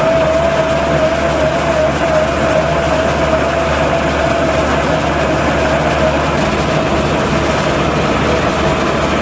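Veenhuis Super forage wagon unloading chopped corn silage, its chain floor and rear beaters driven by the New Holland TVT170 tractor's PTO, with the tractor engine running under load. A steady whine sits over the low engine hum and mechanical clatter.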